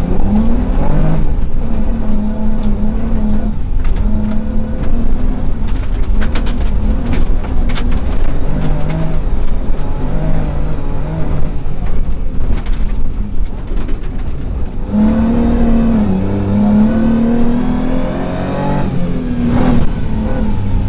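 Rally car's engine heard from inside the cabin while driven hard through a stage, revs rising and falling with gear changes and corners. A run of sharp cracks comes about six to eight seconds in.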